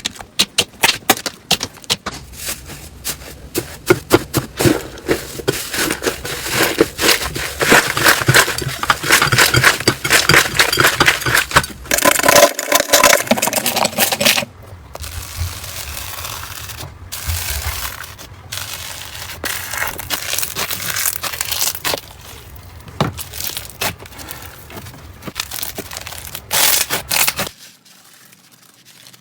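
Crunchy slime being squeezed and worked by hand: dense runs of crackling, popping clicks, sparser in the second half and nearly stopping shortly before the end.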